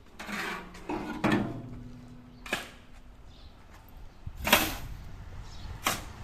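Irregular knocks and taps from construction work with hand tools, about six strikes spread over six seconds with low noise between them.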